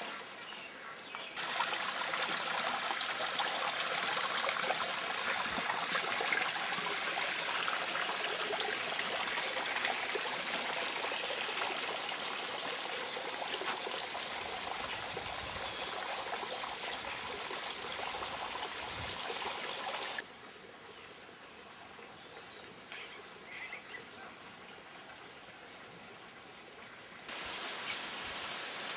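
Steady rushing of running water with a few faint high bird chirps over it. The rush drops sharply in level about twenty seconds in and comes back up near the end.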